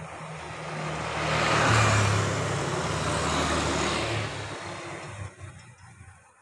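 A motorcycle passing close by. Its engine hum and rushing noise rise to a peak about two seconds in, then fade away over the next few seconds.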